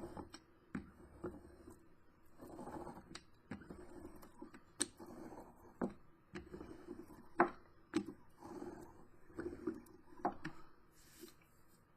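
Craft tools and paper handled on a tabletop: scattered light clicks and knocks, with short soft rustling or rolling passes between them.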